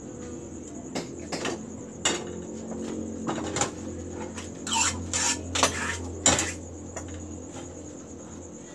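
Small metal frying pans and a ladle clattering on a gas stove during pancake-skin cooking: irregular knocks and scrapes, busiest from about four and a half to six and a half seconds in.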